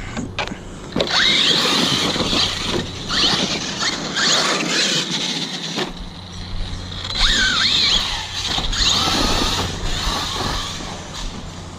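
Arrma Kraton 6S RC truck's brushless motor and drivetrain whining in several bursts as it accelerates and slows, the pitch rising and falling. Mixed in is the drivetrain noise that the owner suspects comes from the differential.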